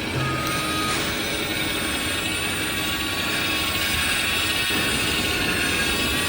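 Remote-control excavator's motors whirring steadily.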